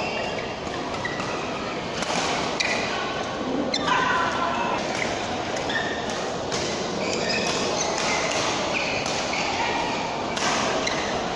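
Badminton doubles rally in a large, echoing hall: repeated sharp racket hits on the shuttlecock and shoes squeaking on the court mat, over a steady background of hall chatter and play on neighbouring courts.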